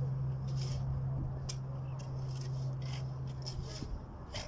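Shovels scraping and digging into dry sand in a string of short, irregular scrapes, over a steady low hum that stops near the end.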